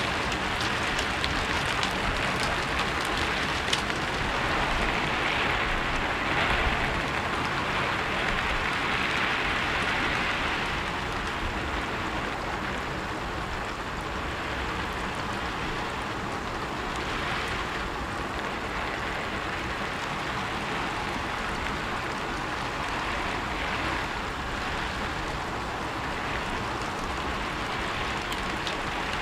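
Steady rain falling on a rooftop: an even hiss of rain, with a few sharper single drop hits in the first few seconds.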